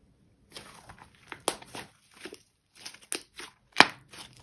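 Thick clay butter slime stretched and squeezed between the hands, giving irregular small crackles and pops, the sharpest a little under four seconds in.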